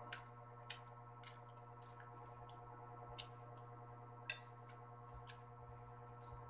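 Wet clicks and smacks of santol fruit being eaten by hand and mouth: about six short sharp ones scattered through, the loudest a little past four seconds in, over a steady faint hum.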